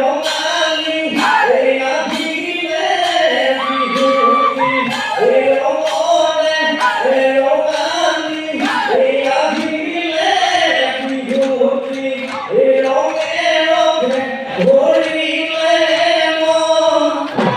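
Husori troupe of men singing together in a chanting chorus, carried along by sharp, regular beats of clapping and percussion.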